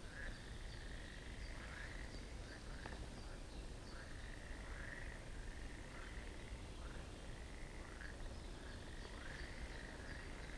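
Frogs calling: a faint series of short rising calls, repeating about once a second.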